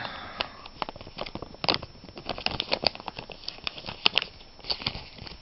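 Cellophane-wrapped rolling-tobacco pouch crinkling and crackling as it is picked up and turned over in the hand, a rapid run of short irregular crackles.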